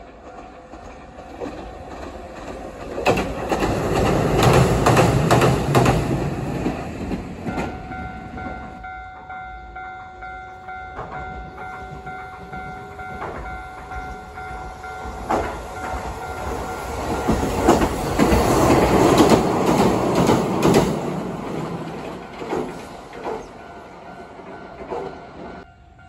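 Two Hiroshima Electric Railway trams pass one after the other: a 3900-series tram, then a 3700-series tram. Each swells loud with the clatter of wheels on the rails and fades away. A level-crossing alarm sounds through the second half.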